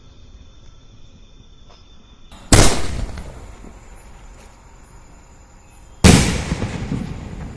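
A 3-inch aerial display shell going off: two loud booms about three and a half seconds apart, each trailing off in a rumble, the first the lift charge firing it from the mortar and the second the shell bursting in the sky.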